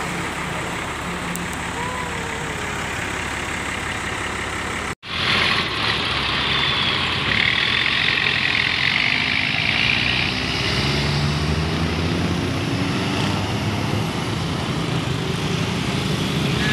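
Large tour bus diesel engine running steadily close by. After a cut, road traffic with a bus driving past: a louder rushing noise for a few seconds, then the engine note rising as it pulls away.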